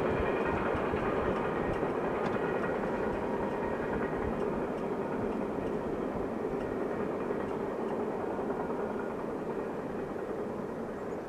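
Freight train cars rolling past at a distance: a steady rumble of steel wheels on rail, slowly fading, with a few faint clicks.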